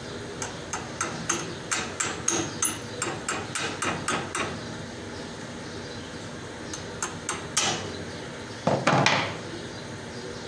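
A metal tool tapping on metal at an embroidery machine's back shaft and bearing: a quick run of sharp ringing taps, about three or four a second, then a few more. It ends in a single louder clatter near the end.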